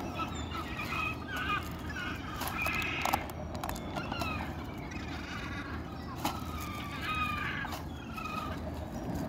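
Many short squeaky animal calls, several a second, bending in pitch, with scattered clicks over a steady low rumble.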